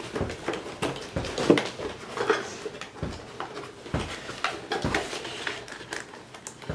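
A cardboard toy box with a clear plastic window is handled and pulled at, with irregular rustles, scrapes and light knocks.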